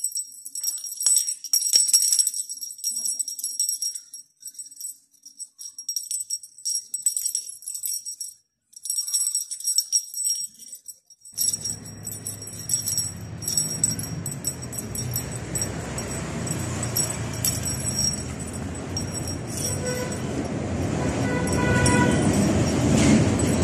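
Small bell on a feather wand cat toy jingling in quick, irregular shakes as a kitten bats and bites at it. About halfway through, a steady rushing noise comes in and grows louder under the jingling.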